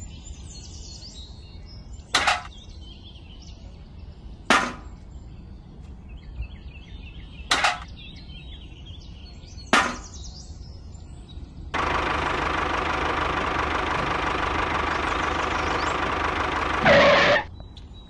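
Small metal cups set down one after another on a homemade toy tractor, four sharp clicks a couple of seconds apart. Then a steady rushing whirr starts suddenly, runs for about five seconds and ends in a brief louder burst.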